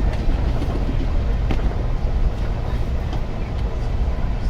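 Train running: a steady low rumble with a few faint clicks and rattles.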